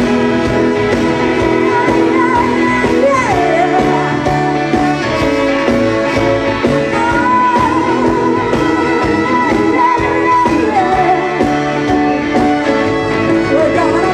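Live band playing a jazzy soul-pop song, with a singer holding long notes with vibrato over the band.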